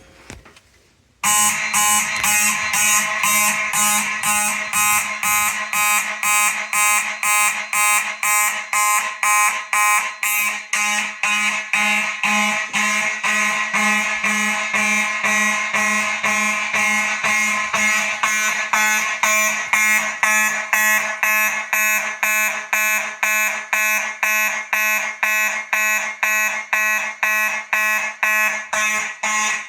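Fire alarm system going into alarm about a second in, set off by a manual pull station: Faraday mechanical horns sounding together in march time, about two blasts a second.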